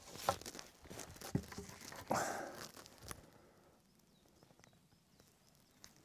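Dry branches being handled and shifted, with rustling, crackling and a few light knocks of wood over the first three seconds, then only faint ticks.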